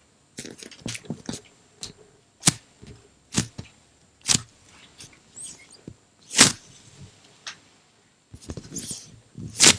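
Fingertips and nails tapping on the skin of a giant peach-shaped foam squishy close to the microphone: about a dozen sharp, irregular taps, the loudest near the end, with a short scratchy rub just before it.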